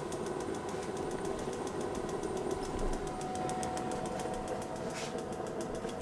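Ryobi One+ P3810 hybrid propane heater running just after ignition: its fan and propane burner make a steady hum with a fast, light ticking. A faint steady whine joins about halfway through.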